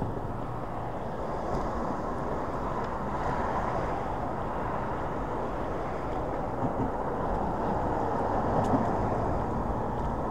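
Steady wind and road noise from riding a Hiboy S2 Pro electric kick scooter.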